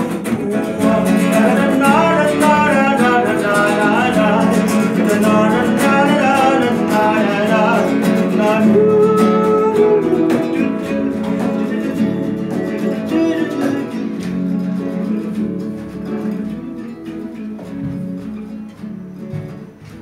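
Acoustic guitar played live with a man singing over it. The song winds down in the second half, and the guitar fades gradually over the last several seconds.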